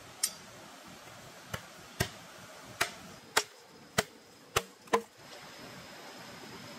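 A large knife chopping into a fresh green bamboo stem: eight sharp, hollow-sounding strikes about half a second apart, stopping about five seconds in.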